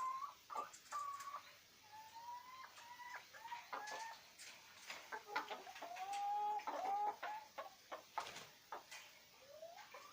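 Chickens clucking, a series of short pitched calls, some gliding up or down, with scattered light clicks between them.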